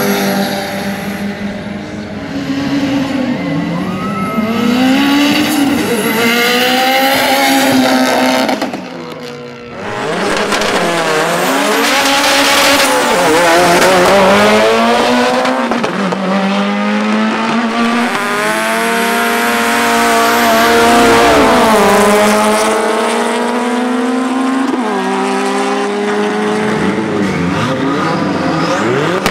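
Drag-racing car engines revving hard and accelerating. The pitch climbs through each gear and drops at the shifts, with some tyre squeal. The sound dips briefly about nine seconds in, then another run starts up.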